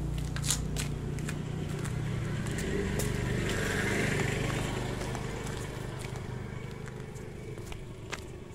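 A motor engine running with a steady low hum, swelling about four seconds in and dying down over the last few seconds, with scattered light clicks.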